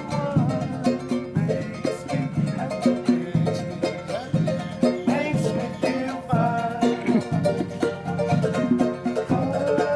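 Live island string-band music: a fast-strummed, banjo-like ukulele over a steady drum beat.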